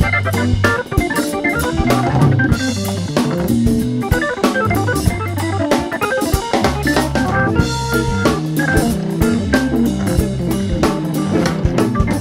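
Soul-jazz recorded live: a Hammond organ plays quick runs of notes over a drum kit keeping time with steady strokes, while sustained low bass notes sound underneath.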